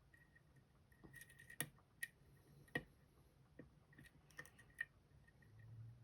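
Faint, sharp, irregular clicks of a lock pick lifting the barrel pin stacks of an Assa Guideline lock, working them up through the plug's milling; the clearest clicks come between about one and a half and three seconds in.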